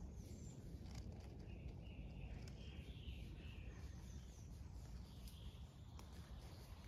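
Faint outdoor ambience: a low steady rumble with a few short bird chirps and warbles, strongest a couple of seconds in and again near the end.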